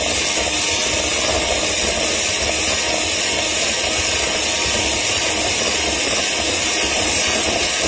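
Electric hand mixer running steadily, its two beaters whipping a cocoa cake batter in a bowl.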